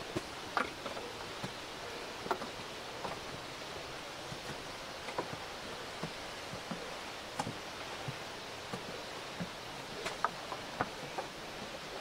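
Steady rushing of a mountain stream, with irregular light knocks and clicks of footsteps on wooden stairs.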